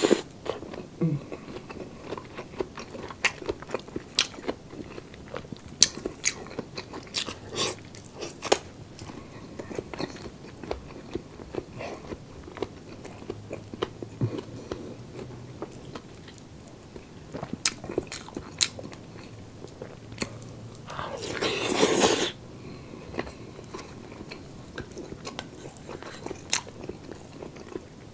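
Close-miked chewing and biting of roast chicken with crisp skin: wet mouth clicks and crunches at an uneven pace. About three-quarters of the way through comes a louder, longer rush of mouth noise lasting about a second.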